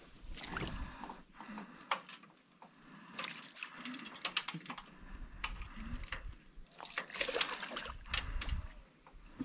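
Hooked fish thrashing and splashing at the surface beside a boat as it is landed by hand, in irregular bursts that are heaviest about three seconds in and again around seven to eight seconds in.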